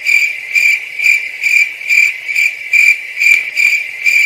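Cricket chirping: a continuous high trill that swells about two to three times a second.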